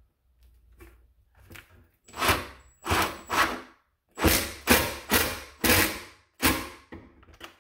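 Red cordless impact driver running in about eight short trigger bursts, driving a one-inch #8 screw through steel strapping into the cabinet to hold the undermount sink up tight.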